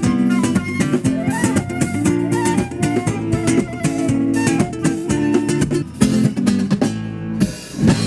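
Live band playing: a flute carries the melody over acoustic guitar, electric bass and a drum kit.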